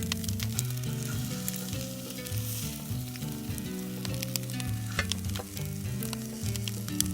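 Food sizzling in a hot pan, a steady hiss with frequent sharp pops, over background music with a moving melodic bass line.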